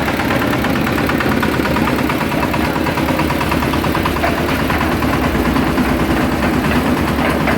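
Small hopper-cooled single-cylinder diesel engine of about 8 hp, running steadily with a fast, even beat.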